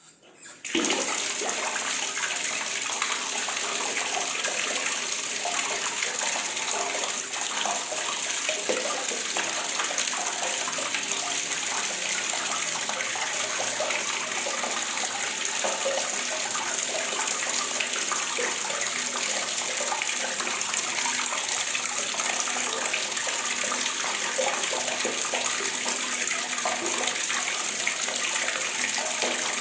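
Water running steadily from a faucet, a continuous splashing hiss that starts under a second in after a brief sputter.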